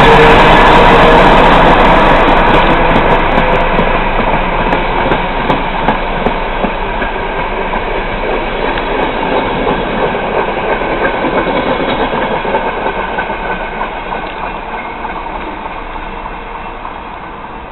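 Departing passenger train rolling past at low speed, wheels clicking over rail joints. The ZSSK class 750 diesel locomotive is loudest at the start, then the sound fades steadily as the coaches roll away.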